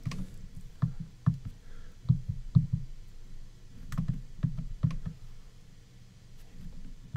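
Keypad buttons of a Polycom SoundStation 2 conference phone pressed one by one as an international number is dialed: about ten short, dull clicks at an uneven pace.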